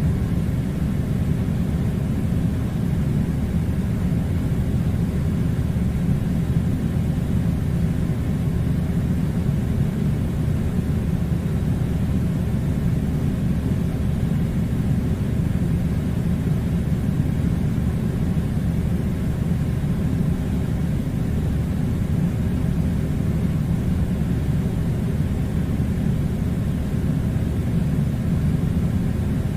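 Air conditioner running with a steady, even low rumbling hum of blowing air, without any change.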